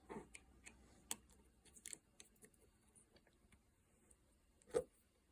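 Small metallic clicks and taps of Glock pistol slide parts being handled and fitted during reassembly, with one sharper, louder click near the end.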